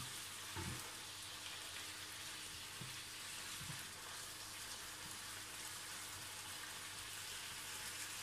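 Pork belly braising in soy sauce and vinegar, sizzling with a steady hiss in a frying pan, with a few light knocks of a wooden spatula against the pan as it is stirred during the first few seconds.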